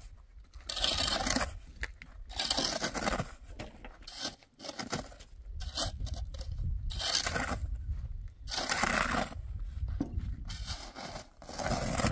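Repeated scraping or rubbing strokes, irregular and about one a second, over a steady low rumble.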